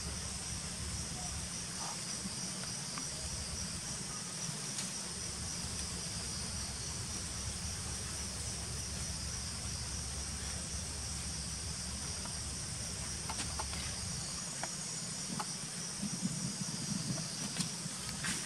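Steady, high-pitched chorus of insects trilling without a break, over a low rumble. A few faint clicks come in the last few seconds.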